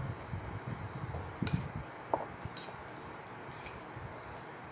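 Gulps of orange juice being swallowed from a glass, then a few light clicks and a short clink as the glass is set down on the table. A faint steady hum runs underneath.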